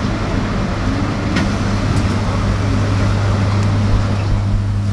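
Electric bus riding along, heard from inside the passenger cabin: a steady low hum over road and body noise, with a couple of faint ticks about a second and a half in.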